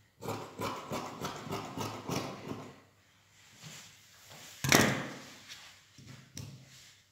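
Fabric scissors snipping through cotton fabric in quick, even cuts, about three snips a second, then stopping. A short, louder rustle follows about two-thirds of the way through.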